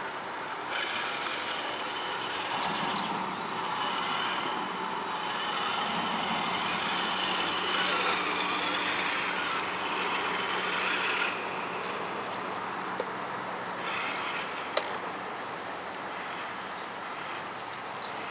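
Radio-controlled Tamiya Tundra trail truck's electric motor and gearbox whining under throttle as it crawls over dirt, in two long bursts with a lull about two-thirds of the way through.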